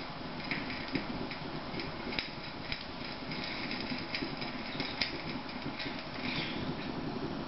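Homemade petrol stove with a Shmel-2 burner, burning with a yellow, not yet blue, flame while it warms up: a steady rushing noise broken by irregular crackles and pops.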